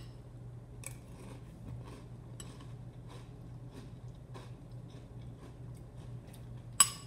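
Eating cereal from a bowl: faint crunchy clicks of chewing all through, and a spoon clinking sharply against the bowl once near the end. A low steady hum runs underneath.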